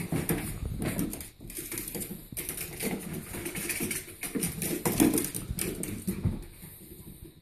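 A chihuahua and a cat scampering and tussling on a parquet floor: a rapid, irregular clatter of claws and paws clicking and scuffling on the wood, dying down near the end.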